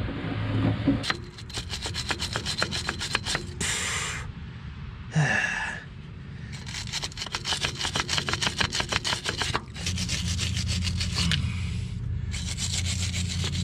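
Hand ratchet clicking in several quick runs with short pauses between them, as bolts are worked loose.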